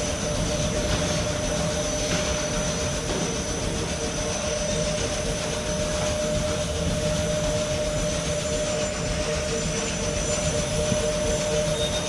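Rotary milking shed machinery running: a steady low rumble from the turning carousel platform and milking plant, with a constant mid-pitched hum and a thin high whine over it.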